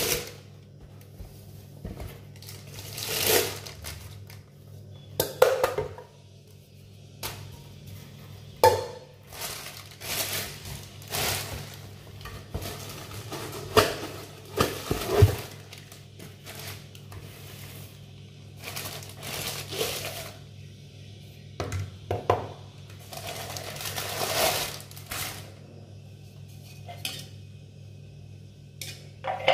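Unpacking noises: plastic wrapping and cardboard rustling, with hard plastic hand-blender parts (chopper bowl, lid, measuring beaker) knocking and clattering against each other and the counter at irregular moments. A low steady hum runs underneath.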